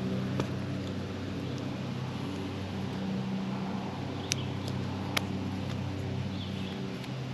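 A steady, low engine drone, with a few sharp clicks from wire strippers cutting and stripping insulated dog-fence boundary wire, the clearest two about four and five seconds in.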